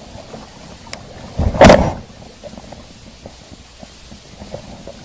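Handling noise as gloved hands deal with a freshly caught rockfish and its line: a brief, loud rustling burst about a second and a half in, with faint clicks before and after.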